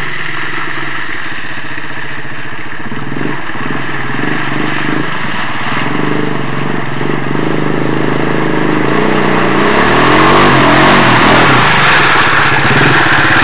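ATV engine running as the four-wheeler drives through mud toward the listener, its pitch wavering with the throttle. It grows louder over the last few seconds, with a rev rising in pitch about ten seconds in as it comes up close.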